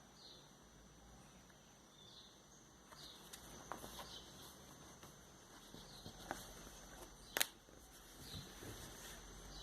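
Light taps, rustles and clicks of a vinyl record and its packaging being handled, with one sharp click a little past seven seconds in. A bird chirps faintly every second or two, over a steady faint high whine.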